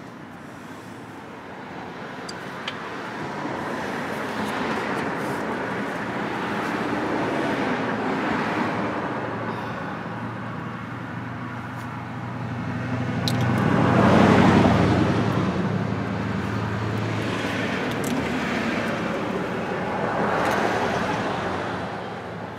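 Road traffic going by: several vehicles pass in turn, each a rising and fading rush of noise, the loudest about two-thirds of the way through, with a low engine hum.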